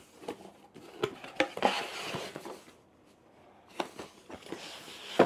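Cardboard product box being opened by hand: scattered light knocks and taps of cardboard, with a longer scraping rustle about two seconds in as the packaging slides apart.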